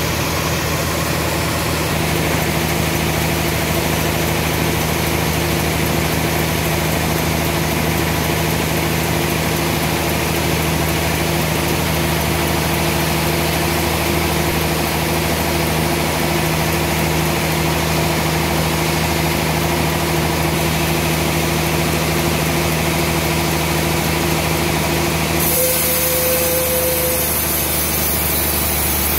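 Band sawmill machinery running with a steady mechanical hum. About 25 seconds in, the sound changes abruptly and a high hiss comes in.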